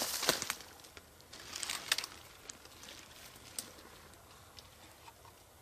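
Dry brush and leaves rustling and crackling as a person pushes through a thicket on foot, in short bursts over the first two seconds, then a few faint clicks.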